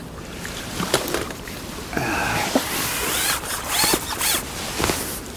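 Water splashing and sloshing as a hooked fish is drawn over a landing net at the surface, with a few sharp clicks and knocks.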